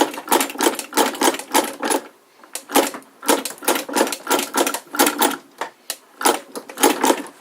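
Antique William Birch industrial chain stitch sewing machine running, its mechanism clacking in an even rhythm of several strokes a second, with a brief pause about two seconds in.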